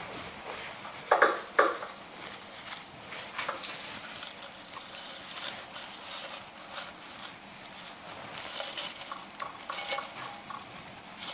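Rustling of hydrangea heads and leafy stems being handled and pushed into a glass vase, with scattered light ticks. Two sharp knocks, the loudest sounds, come about a second in, half a second apart.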